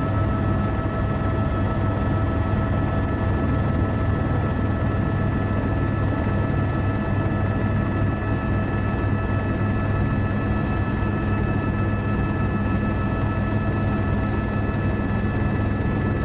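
Steady engine drone of an aircraft in flight, heard from inside the cabin: a constant low rumble with several fixed high whining tones above it.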